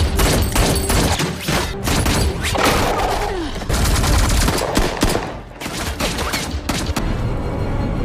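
Film gunfight sound effects: sustained rapid gunfire from several rifles, shots overlapping in dense volleys and easing briefly about halfway through, over a dramatic film score.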